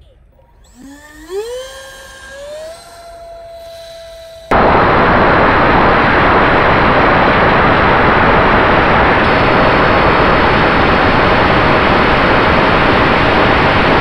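Electric motor of a homemade foam RC jet model spooling up: a whine rises in pitch over about two seconds, then holds steady. About a third of the way in, a loud even rushing noise starts suddenly and drowns the whine, which stays faintly audible beneath it.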